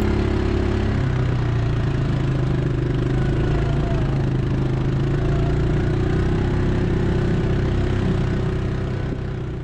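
Yamaha Grizzly 700 ATV's single-cylinder engine running steadily while riding along a dirt trail, its note shifting lower about a second in and then holding even.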